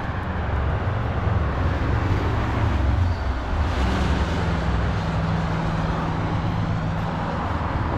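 Steady rumble of road traffic, swelling briefly about four seconds in.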